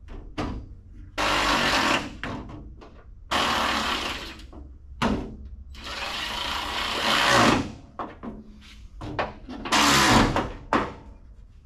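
Power drill/driver running a screw down in about four short bursts, one of them swelling louder as it goes, fastening the bumper filler panel at the front of the truck.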